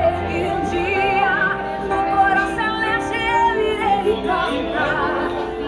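Music with a woman singing, her held notes wavering with vibrato over a steady accompaniment.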